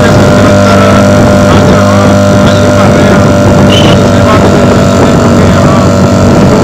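Motorboat engine running steadily at a constant pitch while the boat moves across floodwater.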